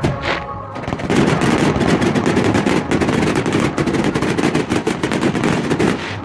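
Aerial fireworks shells bursting from close range, played back at four times normal speed, so that dozens of sharp bangs run together in a dense volley from about a second in.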